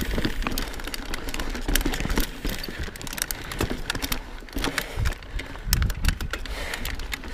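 Knolly Fugitive mountain bike rolling down rocky dirt singletrack: tyres crunching over dirt and rock with a dense run of irregular clicks and rattles from the bike, over a low wind rumble on the microphone.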